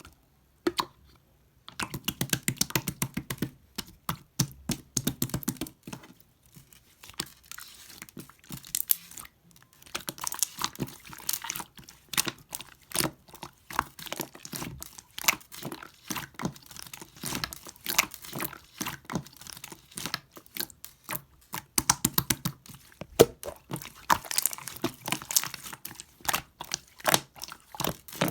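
Pink clear slime being squished and stretched by hand, with a dense run of sticky clicks and crackling pops that starts about two seconds in.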